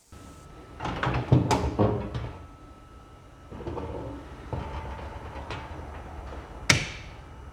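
Handling noise: a cluster of knocks and clicks about a second in, then quieter rustling, and one sharp click near the end.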